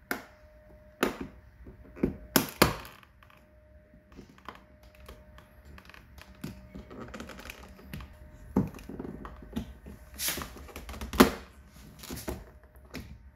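Plastic pry tool working the switch panel out of a Mercedes door armrest: a string of sharp plastic clicks and cracks as the panel's retaining clips let go, with scraping and fumbling between them. The loudest crack comes near the end.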